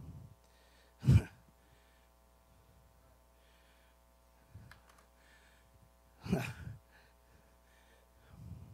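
Breaths and sighs into a handheld microphone: a sharp puff about a second in and a longer sigh about six seconds in, over a faint steady electrical hum.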